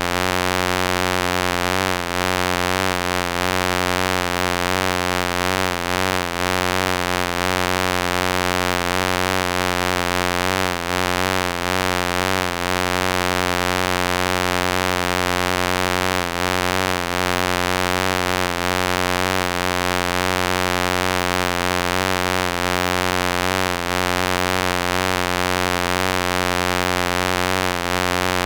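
Wasp buzzing: a continuous low drone of wingbeats, steady in loudness, its pitch wavering slightly.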